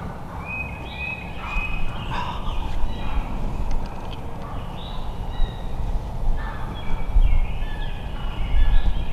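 Turkeys calling in a series of short, high, clipped notes that come in runs throughout. A low rumble underneath grows heavier near the end.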